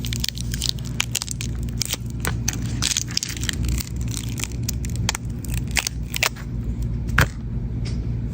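Irregular small clicks, cracks and crackles of tools working on a smartphone while its battery is being changed, over a steady low hum.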